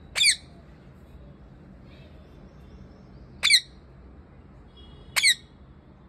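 Rose-ringed parakeet giving three short, harsh squawks, a few seconds apart.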